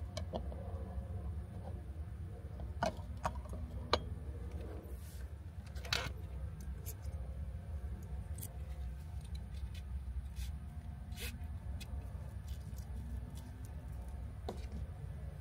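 Scattered light clicks and knocks of tableware being handled, as a small ceramic plate, a red bowl and chopsticks are moved and stacked on a tray table; the sharpest knock comes about six seconds in. A steady low hum runs underneath.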